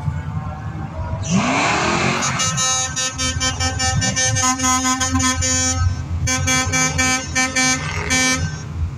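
Vehicle horn sounding at one steady pitch in a long blast of about three and a half seconds, then after a short break a few more honks, over the low rumble of passing cars and trucks. About a second in, a loud rising rush of noise comes just before the horn.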